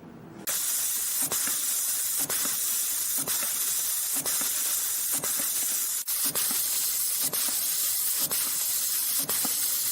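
YHM CF-320 CNC spring-forming machine running in production. A loud steady hiss sets in about half a second in, and a sharp click comes about once a second, once per spring cycle.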